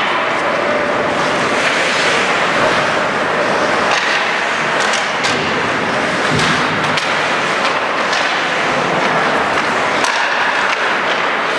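Ice hockey play on a rink: skate blades scraping the ice over a steady arena din, with a few sharp clacks from sticks and puck.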